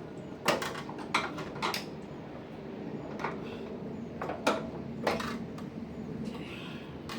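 Knocks and clatter of a tumble dryer's top lid panel being worked loose and lifted off: a series of sharp knocks, the loudest about half a second in, then more around one to two seconds and four to five seconds in.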